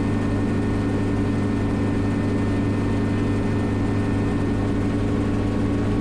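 Schweizer 300CB helicopter in flight, its four-cylinder Lycoming piston engine and rotors heard from inside the cockpit as a constant drone: a strong low hum with several steady higher tones over it.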